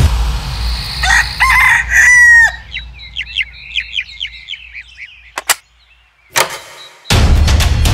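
Cartoon sound effect of a rooster crowing, one long call about a second in, followed by a run of quick chirps. Near the end come two sharp clicks of a key working a door lock, then background music comes back in.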